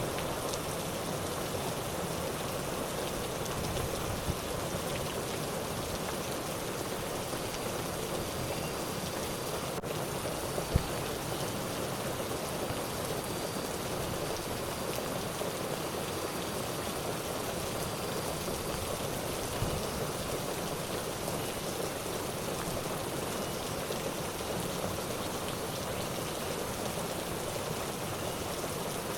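Steady rain, an even hiss that holds level throughout, with a couple of brief taps.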